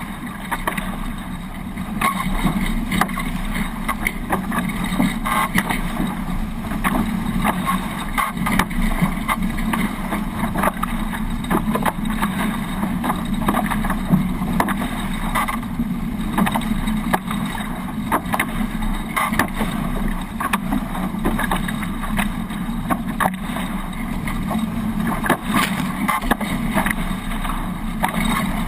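Hobie 18 catamaran under sail: a steady rush of water along the hulls and wind on the microphone, broken by frequent short, sharp knocks and splashes.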